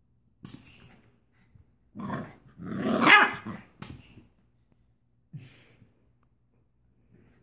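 Pit bull puppy barking and growling in a few short bursts, the loudest about three seconds in.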